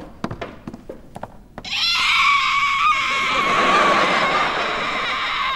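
A few light knocks, then about two seconds in a loud, long high-pitched cry with a slight waver, held for nearly four seconds.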